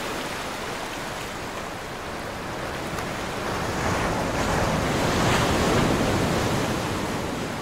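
Sound of ocean surf: a steady wash of waves that swells to its loudest about four to six seconds in, then eases off near the end.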